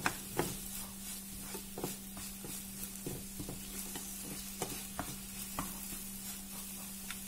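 Wooden spoon stirring and scraping chopped tomato, onion and chili powder in a ceramic-coated frying pan, with irregular light taps of the spoon on the pan over a gentle sizzle as the masala fries. A steady low hum runs underneath.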